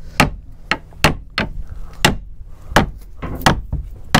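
Repeated hammer blows on wood driving a new wooden frame down into place in a boat's hull: about two sharp knocks a second, unevenly spaced.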